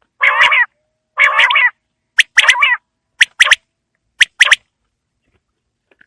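Quail calling: two harsh, rasping calls, then three sharp, high notes about a second apart, each followed by a short rasp.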